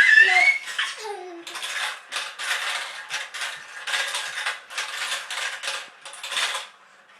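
Marbles rolling and clattering down a marble run track in a string of short rattling runs, after a child's high voice at the start.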